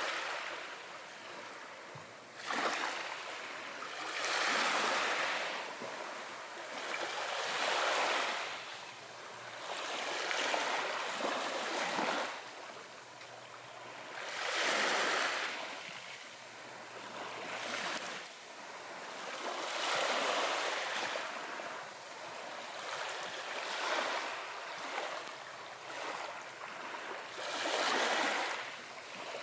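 Ocean waves washing ashore, the rush of water swelling and fading every few seconds.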